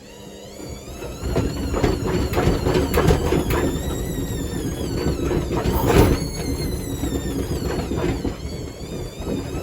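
Indesit Moon SIXL145 washing machine picking up speed about a second in, its motor whine wavering in pitch. The machine knocks and bangs irregularly as it jumps about.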